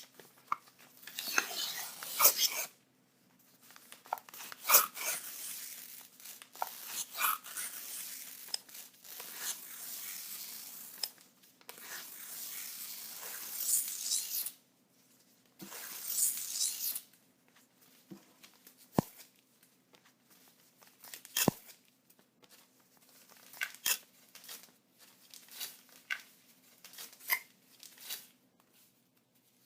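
Paper being torn, over and over: a string of long rips in the first half, then shorter, sharper tears and crackles, with a couple of sharp clicks in between.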